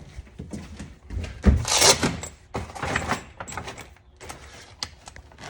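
Handling noise from the spare tire kit's tool bag being searched: fabric rustling and scraping, with a dull thud about a second and a half in and a loud rustle just after.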